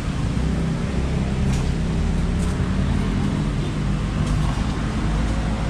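Steady low rumble of a vehicle engine running and road traffic, with a few light clicks.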